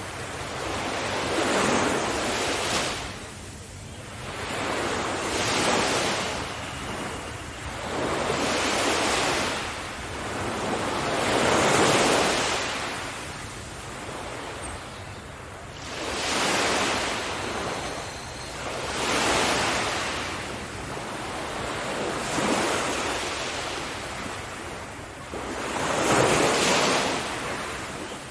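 Sea waves breaking on a shore, about one every three to four seconds, each a rushing swell of surf that rises and then fades.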